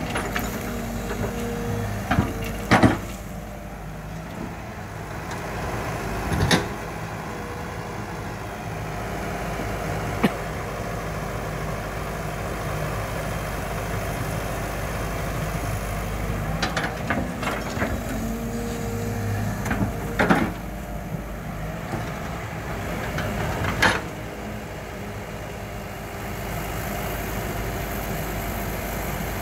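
Caterpillar hydraulic excavator's diesel engine running steadily as it digs and swings, with a higher tone that comes and goes as the arm works. Sharp clanks of the bucket on soil and stones sound several times.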